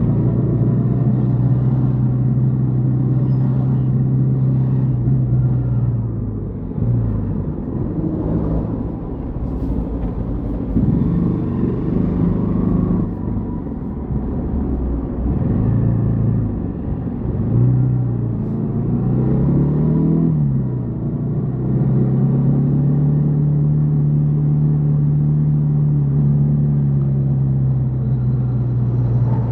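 Yamaha XTZ 150 Crosser S single-cylinder engine running under way. It holds a steady pitch, then its revs fall and rise several times through the middle, then it settles into a steady cruise again.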